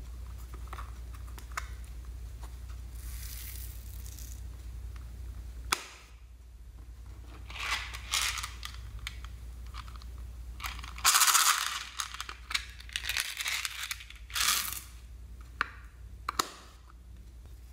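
Plastic slime containers being handled over a glass tray of beads and sequins: scattered clicks and knocks with short scraping, crinkling noises, the loudest about eleven seconds in. A low steady hum runs under the first six seconds and then drops away.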